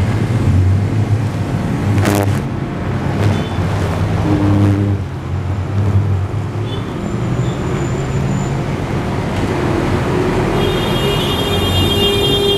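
Road traffic noise, a steady engine rumble of passing vehicles that rises and falls. There is a sharp click about two seconds in, and a vehicle horn sounds for about two seconds near the end.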